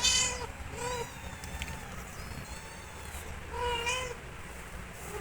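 Cat meowing: three short high-pitched meows, one at the start, one about a second in and a slightly longer one near four seconds.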